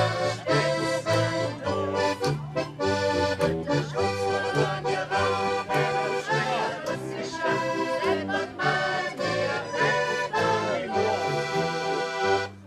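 Accordion playing a lively instrumental tune, sustained chords over a stepping bass line with a regular percussive beat.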